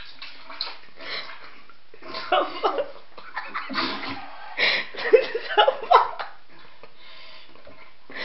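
A person retching into a toilet bowl, with splashing in the bowl water, in several uneven bouts that stop about six seconds in.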